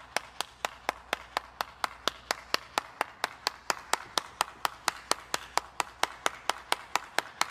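One person clapping hands at an even pace, about four claps a second.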